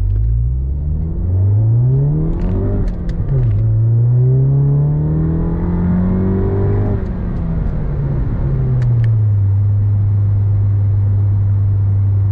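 Turbocharged four-cylinder engine of a Mk7 Volkswagen GTI with a Baun Performance exhaust, heard from inside the cabin, accelerating hard. The revs climb, drop at a gear change about three seconds in, climb again, then fall back about seven seconds in and settle into a steady cruise.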